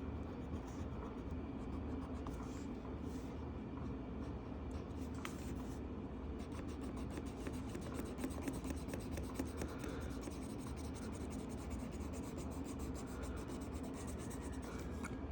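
Colored pencil scratching on paper in many quick, continuous shading strokes as a coloring-book page is filled in.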